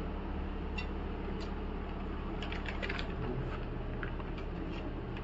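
Scattered light clicks and crinkles of a plastic wet-wipes packet being handled and a wipe pulled out, with a cluster of ticks about halfway through, over a steady low hum.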